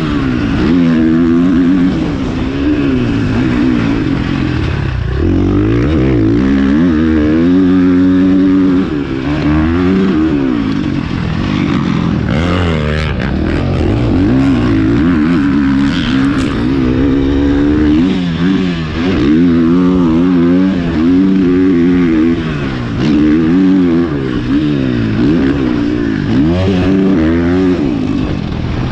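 Husqvarna FC450's 450 cc single-cylinder four-stroke engine, heard from the rider's helmet camera, revving hard and backing off over and over as the bike accelerates, shifts and slows for corners on a motocross track. A few short knocks sound a little under halfway.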